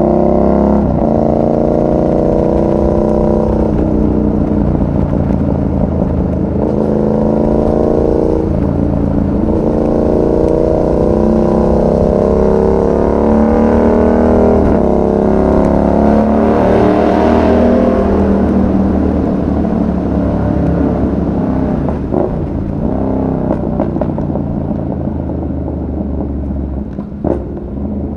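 Yamaha MT-07's parallel-twin engine accelerating hard through several gears, its pitch climbing and dropping back at each upshift about every two to three seconds. About two-thirds of the way through it eases off and runs lower and quieter.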